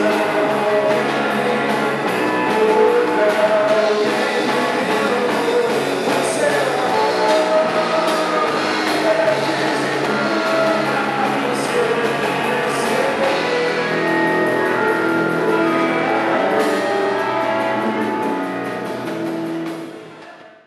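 Rock band music with guitar, fading out over the last second or so.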